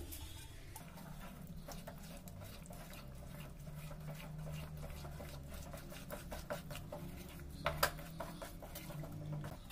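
Wooden spatula stirring and folding a thick, sticky besan-and-sugar-syrup mixture in a kadai: a faint, continuous run of soft scrapes and clicks, with a couple of sharper clicks about eight seconds in.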